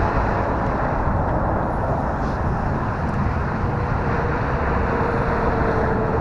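Faint whine of the RC Carbon Cub S2's electric motor as the model plane flies, heard as a thin steady tone in the second half, under a constant rushing noise of wind on the microphone.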